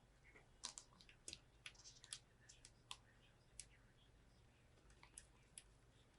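Faint, scattered sharp clicks and ticks of a screwdriver and a small screw being handled and fitted on a PC motherboard, most of them packed into the first few seconds with a few more near the end.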